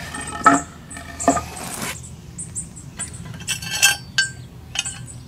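Irregular light metallic clinks and clatter as a riding-mower cutting blade is handled and fitted back up under the mower deck.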